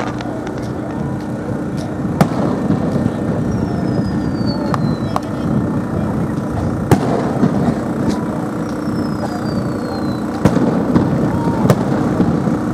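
Aerial fireworks shells bursting with about six sharp bangs at uneven intervals. Twice a thin, high whistle falls in pitch for about a second before a bang.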